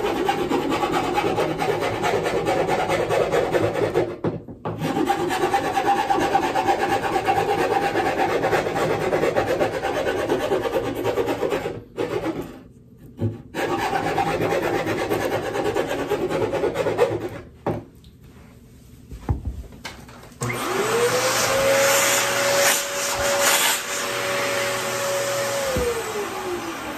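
Steel file rasping back and forth inside a hole-saw-cut hole in a wooden desktop, enlarging it for a tight-fitting desk grommet, in long stretches with two short breaks. Near the end an upright vacuum cleaner's motor spins up with a steady whine, runs for about five seconds, and winds down.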